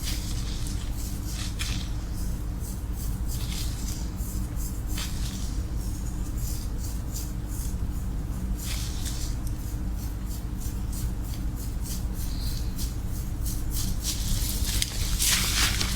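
Fingers scrubbing and massaging a lathered scalp during a hair wash: irregular short scratchy rubbing strokes over a steady low hum, growing louder and denser near the end.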